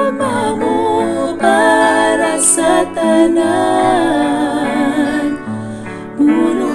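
A woman singing a Cebuano worship song over instrumental accompaniment, holding long notes that waver in pitch, with short breaks about three and six seconds in.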